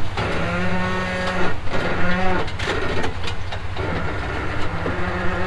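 Off-road rig's suspension creaking as it flexes crawling over rock: several long creaks, each held at a steady pitch for up to about a second, the squeak of dry joints in need of lubricant. The engine runs low underneath.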